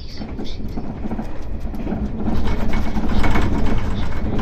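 A 381-series electric train running along the line, heard from inside the front car: a steady rumble with rapid clicking of wheels over the rails. It gets louder a little past halfway.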